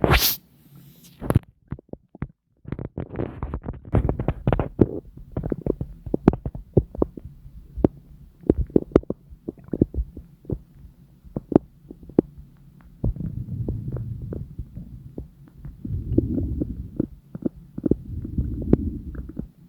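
Human stomach and intestinal gurgling: a quick irregular run of small pops and bubbling clicks, with longer stretches of low rumbling in the last third. A brief rising squeak sounds at the very start.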